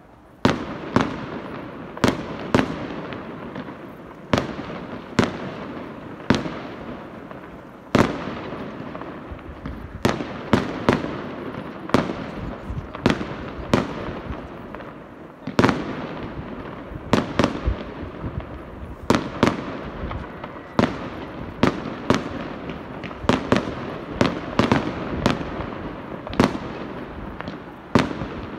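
Aerial firework shells bursting in steady succession: sharp bangs about once a second, sometimes two in quick succession, with a rumbling echo between them.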